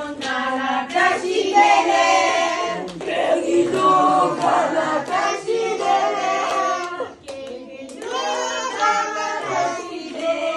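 Voices of children and adults singing together, with hand clapping.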